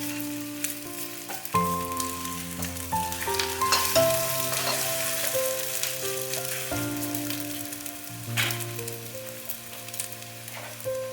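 Food sizzling as it fries in a pan, with a few short clicks of utensils, under background music of sustained chords that change every couple of seconds.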